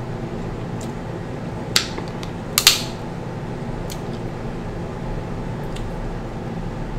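Crab shell cracking as it is broken apart by hand to pick out the meat: two sharp snaps less than a second apart, about two seconds in, and a few fainter ticks, over a steady fan hum.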